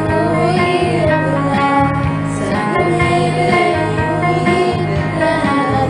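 A song: a singing voice over instrumental backing music.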